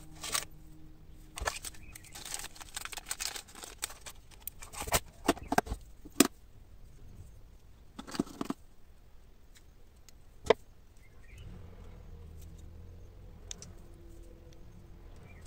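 Hands handling a plastic parts organizer box and small metal keyring parts: light rustling and clatter with scattered sharp plastic-and-metal clicks, the loudest about six and ten seconds in.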